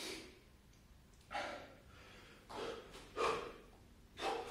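A man breathing hard during a burpee, with about five short, forceful breaths in four seconds: winded from sustained exertion.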